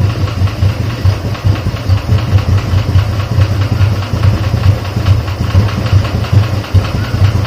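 Royal Enfield G2 Bullet's 350 cc single-cylinder engine idling with an even, steady thump.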